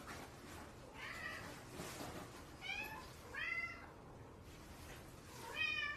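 Domestic cat meowing repeatedly: four short meows that rise and fall in pitch, the first faint and the last, near the end, the loudest.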